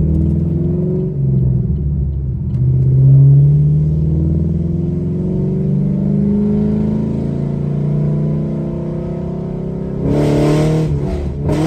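Car engine under hard acceleration heard from inside the cabin, its pitch climbing several times with brief drops between, as in pulling through the gears. A short loud rush of noise comes near the end.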